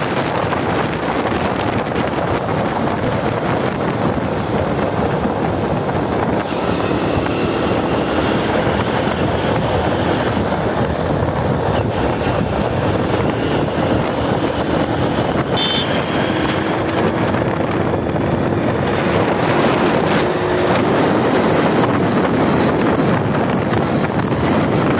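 Wind rushing over the microphone of a moving motorcycle, with the motorcycle's engine running underneath. A short sharp click a little past halfway.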